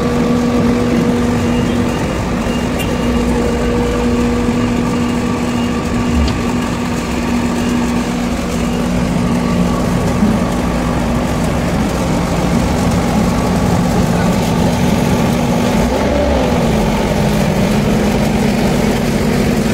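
Asphalt paver finisher's diesel engine running steadily with a constant hum, rising and falling briefly in pitch about sixteen seconds in.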